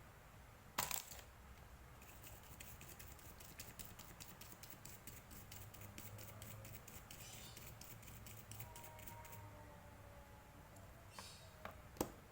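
Light clicking and rapid ticking of small hard parts being handled: one sharp click about a second in, a run of fast ticks for several seconds, then a few more clicks near the end.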